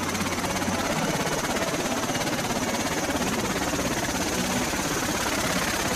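V-22 Osprey tiltrotor running on the ground with its proprotors turning, a rapid even beat from the blades over a steady high whine from its turboshaft engines.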